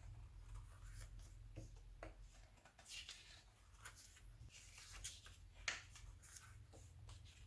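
Faint rustling of glossy magazine pages being handled and turned, in short scattered rustles over a steady low hum.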